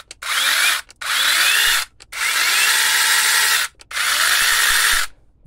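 Sainlogic 6-inch cordless mini chainsaw's electric motor and chain running freely in the air in four short bursts as the trigger is squeezed and let go, each starting with a rising whine as it spins up; the last two bursts are the longest.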